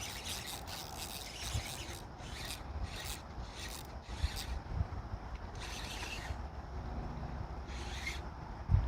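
A run of short, irregular rubbing and scraping noises over a low rumble, with a sharp low thump near the end.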